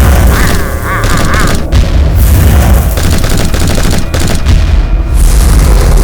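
Continuous loud booming and rumbling, like cartoon explosion and gunfire sound effects, layered with music. A warbling electronic tone runs through the first second and a half.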